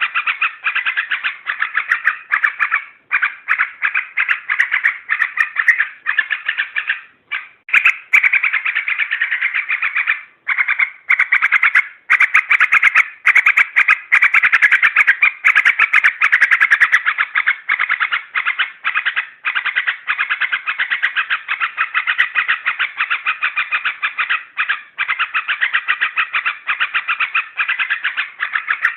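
Yellow-vented bulbul (trucuk) chattering in a fast, dense, unbroken stream with only a few brief breaks: a lure call played to provoke other trucuk into singing or to draw wild ones in.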